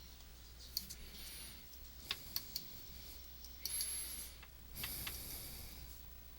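Faint, scattered clicks of a computer mouse and keyboard, a few sharp single clicks and short runs of taps, with brief faint high squeaks in between.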